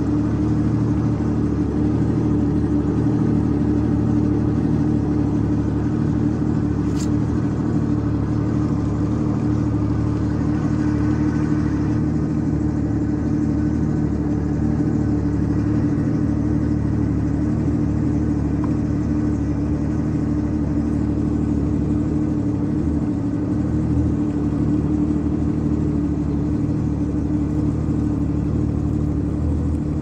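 Yamaha WaveRunner jetski engine running steadily under way, a constant low drone that hardly changes in pitch or level. One brief click about seven seconds in.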